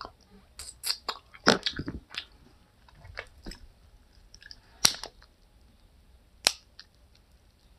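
Close-up eating sounds: a person biting and chewing corn on the cob, with irregular wet smacks and crunches, a few of them sharp and loud.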